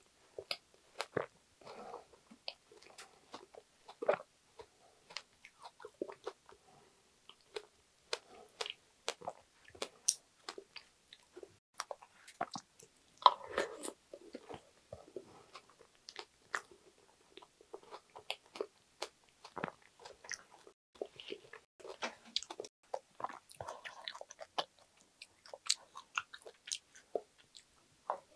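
Close-miked chewing and wet mouth sounds of someone eating spoonfuls of soft strawberry cheesecake soaked in strawberry milk, with a light crunch from the crumble topping. Irregular sharp smacks and clicks run throughout, loudest as a spoonful goes in about halfway through.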